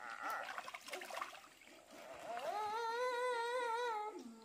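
A high voice holding one long, slightly wavering note for about two seconds, sliding up at its start and dropping away at the end.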